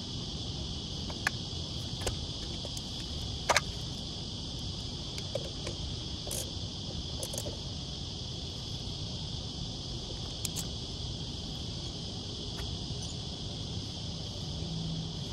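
A handful of sharp clicks and knocks from a socket ratchet and hands working on the plastic fan-blade hub of an air-conditioner outdoor unit, the loudest about three and a half seconds in. Under them runs a steady high-pitched insect drone.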